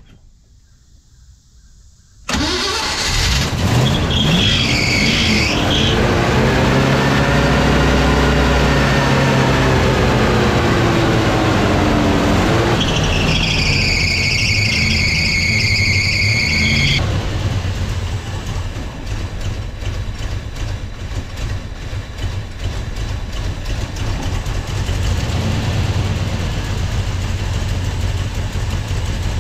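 1982 Ford F-150 engine starting after sitting for about six weeks: it comes in suddenly about two seconds in, revs up and back down, and settles into a steady idle. A high squeal sounds twice while it settles.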